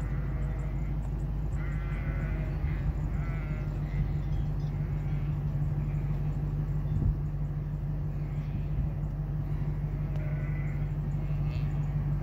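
A flock of sheep bleating, with scattered wavering calls, several in the first few seconds and more near the end, over a steady low hum.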